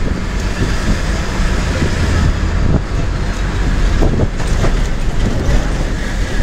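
Bus heard from inside while driving: a steady, low engine and road rumble, with a few short knocks about three and four seconds in.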